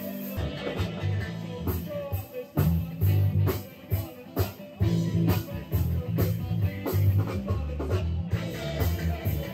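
Live street band playing fast dance music: a drum kit keeps a steady beat under bass, guitar and singing, easing off briefly about four seconds in.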